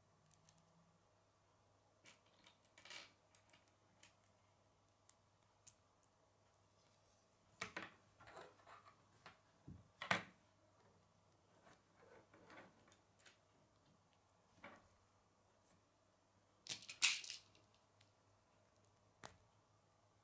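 Plastic K'nex rods and connectors being handled and snapped together: scattered small clicks and short rattles, the loudest about halfway through and again near the end, over a faint steady hum.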